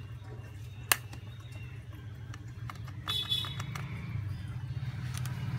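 Thin metal pry tool scraping and clicking along an Honor 10 Lite's metal mid-frame as old adhesive is cleared off: one sharp click about a second in, then a short run of scratchy clicks with a thin squeak a little past halfway. A low steady hum lies underneath and grows into a rumble near the end.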